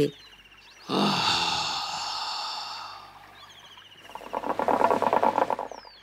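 A man's long, breathy sigh of contentment, followed by a rapid bubbling gurgle of water in a hookah being drawn on. Faint bird chirps sound in the background.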